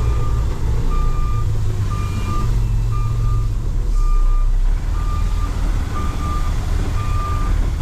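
Kenworth T880 dump truck's reversing alarm beeping steadily, about once a second, over the diesel engine's low running rumble as the truck backs up.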